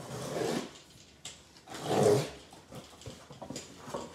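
Cardboard shipping box being slit open with a box cutter and handled: two noisy bursts of cutting and cardboard scraping, the louder about two seconds in, then a few light knocks.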